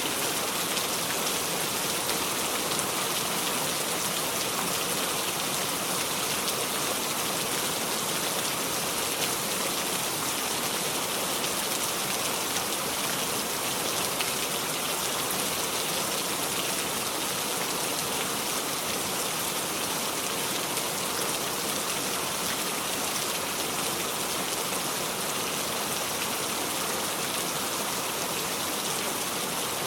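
Steady heavy rain falling, an even hiss of drops on surfaces with no thunder.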